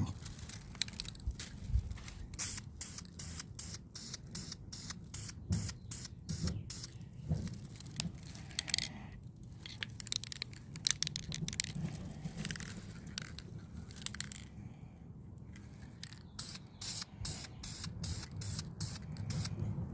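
Aerosol spray paint can sprayed in many short, quick bursts, a few a second, with a short pause about three quarters of the way through.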